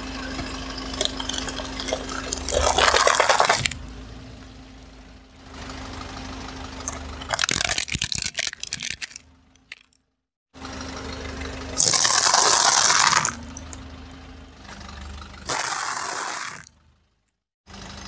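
A car with its engine running slowly drives its tyre over piles of objects on asphalt. This happens four times in separate short takes, and each one is a loud burst of crunching and crackling.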